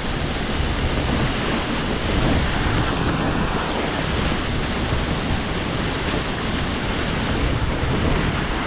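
Steady rush of flowing river water pouring into a deep stone well.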